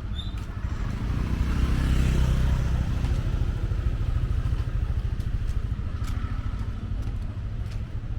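A vehicle engine passing close by, swelling about two seconds in and then fading, over a steady low rumble.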